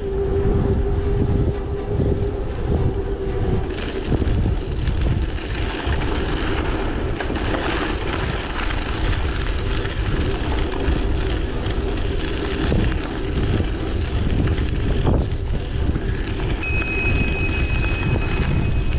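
Wind buffeting the microphone of a camera on a moving bicycle, mixed with the rolling noise of the tyres on the path. The sound is a steady, dense rush.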